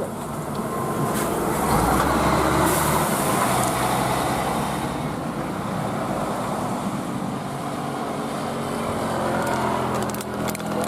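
Road traffic noise: a heavy vehicle's engine and tyres running, with a deeper rumble swelling about two seconds in and then settling to a steady drone.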